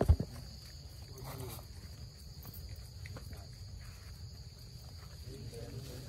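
Steady high-pitched drone of insects, with a steady low rumble beneath it. A sharp knock at the very start is the loudest sound.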